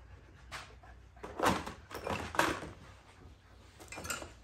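Thick pick-apart foam insert being pulled out of a hard plastic case, rubbing and scraping against the case walls in several short scuffs, the loudest about a second and a half in.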